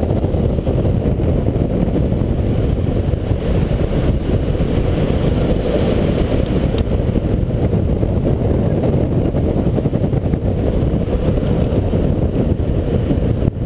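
Steady low roar of wind buffeting the camera microphone at downhill longboarding speed, mixed with the rolling of urethane skateboard wheels on asphalt.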